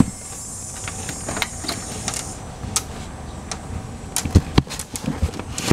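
Handling noise: scattered clicks and light taps, with a few louder low knocks about four and a half seconds in.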